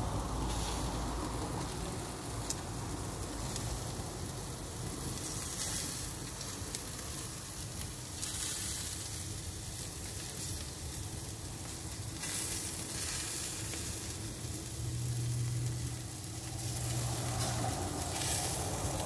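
Marinated pork chops, ribs and chicken pieces sizzling on hot grill grates, with a steady crackle of fat and marinade frying.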